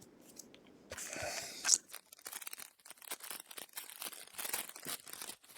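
Foil booster-pack wrapper torn open about a second in, then a run of quick small crinkles and clicks as the wrapper and cards are handled.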